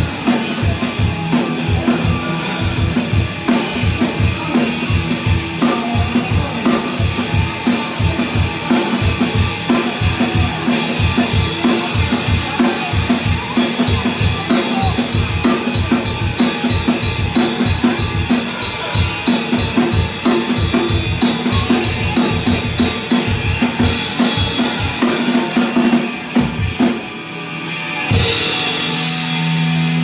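Live band with a drum kit playing fast, steady bass-drum strokes with snare hits and cymbal crashes, over an electric guitar holding notes underneath. A little before the end the drumming breaks off briefly, then a cymbal swells back in.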